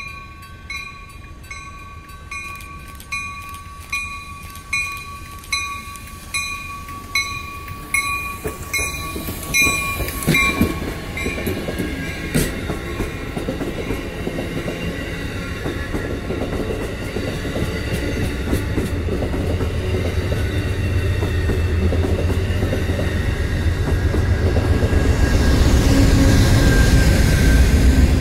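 Grade-crossing bell ringing a little more often than once a second as an Amtrak Downeaster passenger train comes in. The diesel locomotive and its coaches then pass close by with a heavy rumble and wheel clatter that grows louder toward the end.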